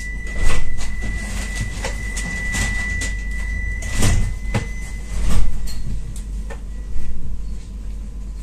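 Alstom Citadis 302 tram at a stop: the door-closing warning tone, one steady high beep, cuts off about five seconds in, while the doors slide shut with several thumps and knocks.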